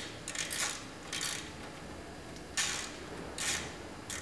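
A 10 mm socket ratchet working the engine's sump plug loose: a handful of short ratcheting clicks at uneven intervals.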